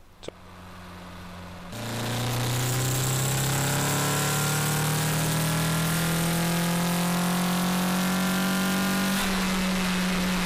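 Car engine heard from inside the cabin. A quieter steady hum is followed, about two seconds in, by a loud full-throttle pull in one gear, the engine note rising slowly as the revs climb toward about 6,000 rpm. Near the end the throttle is released and the rising note drops away into engine braking: a hard break-in pull on a new or rebuilt engine, full throttle then a decisive lift-off without changing gear.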